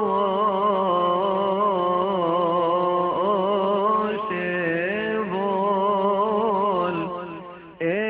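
A man's voice chanting a slow, melismatic Coptic church hymn, long held notes that waver and turn around each pitch. The chant fades down after about seven seconds, then a new phrase starts abruptly just before the end.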